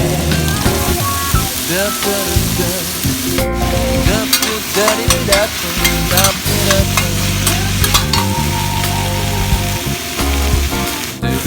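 Food sizzling in hot oil in a pan while it is stirred, with scattered clicks of the utensil against the pan.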